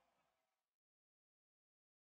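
Near silence: the last of the recording fades out within the first half second, then there is nothing at all.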